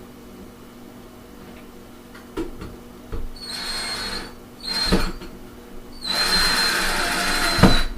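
Power drill driving screws into a window-shade mounting bracket in three bursts: a short one about three and a half seconds in, a brief one near five seconds, and a longer one from about six seconds almost to the end, with a few knocks in between. The screws are driven only partway, left loose for adjusting the bracket.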